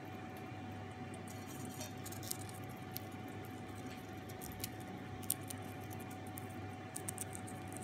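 Blue Indian ringneck parakeet eating popcorn from a stainless steel bowl: scattered sharp clicks and small crunches of its beak biting popcorn and pecking in the bowl.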